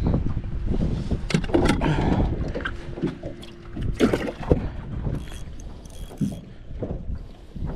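Water slapping against the hull of a small fishing boat on choppy water, with scattered irregular knocks and rattles from gear being handled in the boat.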